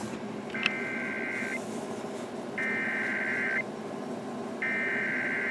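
Emergency Alert System SAME header: three bursts of digital data tone, each about a second long and a second apart, over steady radio hiss, with a sharp click about half a second in. It is the coded header that opens a National Weather Service tornado warning broadcast.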